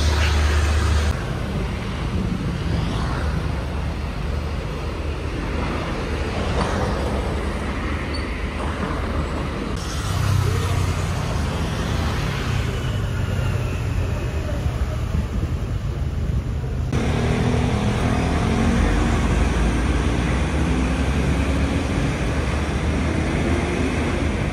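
Road traffic noise: a steady low rumble of passing vehicles, shifting abruptly in level and tone about a second in, around ten seconds and again around seventeen seconds.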